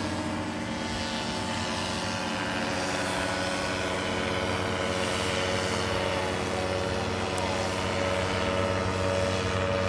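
Paramotor engine and propeller droning steadily in flight, holding one even pitch.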